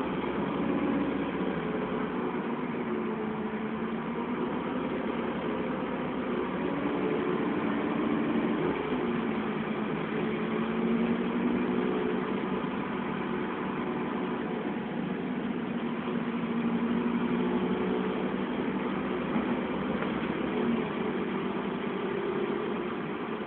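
Dennis Trident double-decker bus's diesel engine running under way, heard from inside the upper deck, its note rising and falling several times as the bus picks up speed and eases off.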